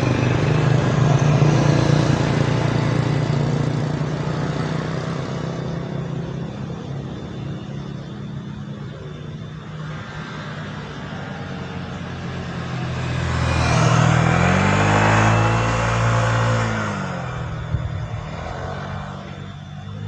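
Traffic on a road: a motorcycle's engine runs steadily and fades away over the first several seconds. Then, from about 13 to 17 seconds in, another motor vehicle passes, its engine note rising and then falling as it goes by.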